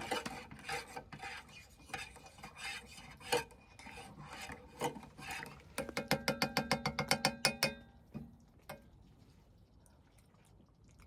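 A spoon stirring in a cup: irregular scraping and clicking at first, then a quick run of ringing clinks, about eight a second for nearly two seconds, before it goes quiet.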